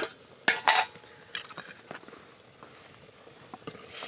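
Metal spoon knocking and scraping against a steel cooking pot as meat is stirred, with two loud clinks about half a second in and lighter knocks after.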